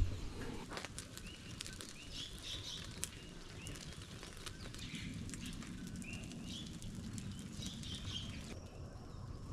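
Small birds chirping in repeated short, curving notes over a steady low rumble, with scattered clicks; the chirping stops shortly before the end.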